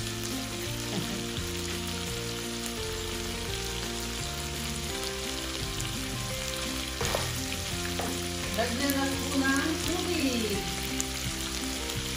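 Shrimp and chicken pieces sizzling in hot oil in a nonstick pot, stirred with a wooden spoon at first, then left frying.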